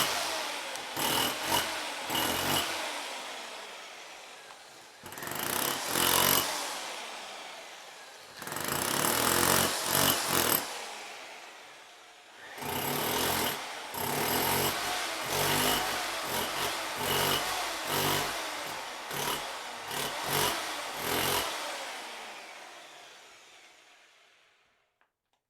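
Jackhammer hammering in repeated bursts: a short one at the start, two of about one and a half and two seconds, then a long run of about nine seconds with brief surges. Each burst trails off in a long echoing decay, and the last one fades away near the end.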